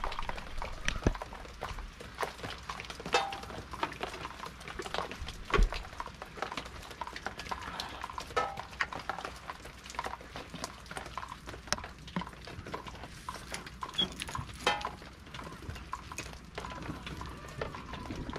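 Irregular taps of raindrops dripping onto a corrugated sheet roof overhead during light rain.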